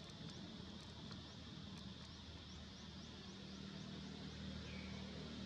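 Quiet outdoor ambience: a steady low hum under faint, short high chirps repeating about three times a second, which die away partway through, with a few faint clicks.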